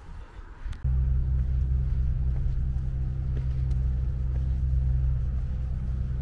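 A faint low rumble, then, about a second in, an engine's steady low hum starts suddenly and runs on unchanged.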